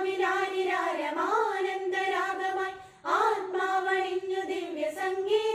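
Women's choir singing a Christmas carol in unison, with no instruments. There are two phrases with a short breath break about three seconds in.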